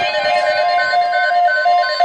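Weather alert radio sounding its alarm: loud electronic tones alternating between a low and a high pitch about three times a second, with a steady tone starting underneath about halfway through.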